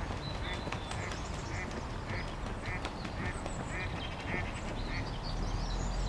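A duck quacking in an even series of about nine quacks, roughly two a second.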